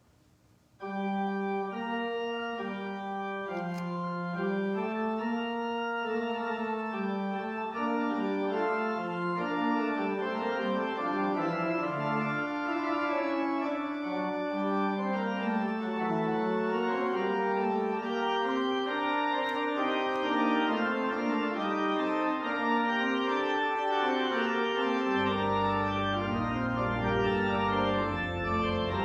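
Organ playing slow, sustained chords with a moving melody, starting suddenly about a second in. Deep pedal bass notes come in near the end.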